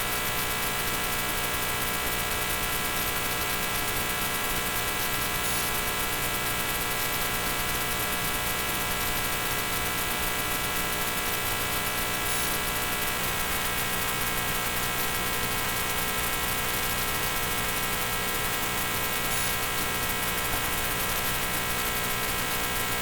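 A steady electrical hum, rich in overtones, with a faint hiss over it. Its upper tones shift slightly about halfway through.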